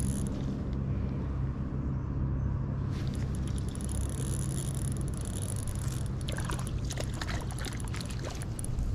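Steady low motor hum, with scattered clicks and crackling from about three seconds in.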